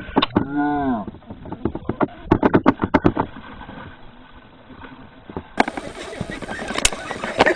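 A man's drawn-out whooping shout that rises and falls in pitch, then a quick run of about ten sharp knocks or clicks.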